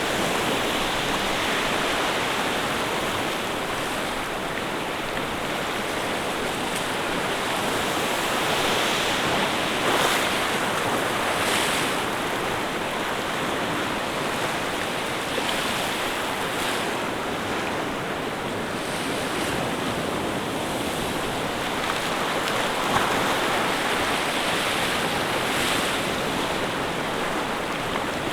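Steady rushing water, with gentle swells and a few brief splashes.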